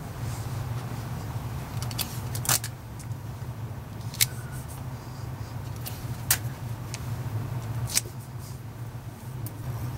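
Handling noise from a hand pressing and smoothing a film sheet covered with clear mylar on a flat surface: about eight scattered sharp clicks and crackles over a steady low hum.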